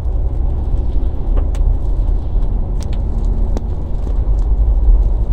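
Car interior road noise while driving on a wet road in the rain: a steady low rumble of tyres and engine, with a few light ticks.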